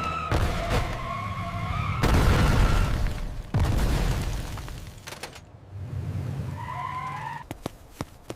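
Loud rumbling boom-like crash sound effect about two seconds in, with wavering whistle-like tones before it and again near the end.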